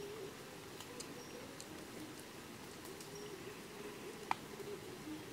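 Wood fire crackling under a steaming wok, with scattered sharp pops, the loudest about four seconds in, over a faint wavering hum.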